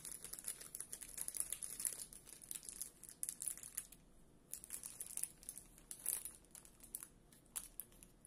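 Crinkling of a thin plastic snack bag of gummies being handled and rummaged through, in quick irregular crackles that ease off for a moment about four seconds in and then come back more sparsely.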